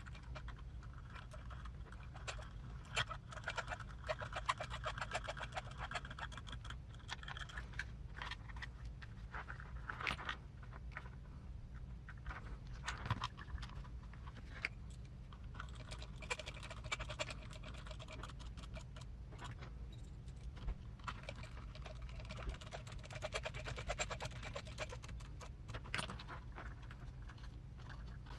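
M3 cap-head screws being driven into small RC transmission parts: two runs of fast, fine, even clicking with a faint whine, each several seconds long, amid light clatter of parts and tools being handled.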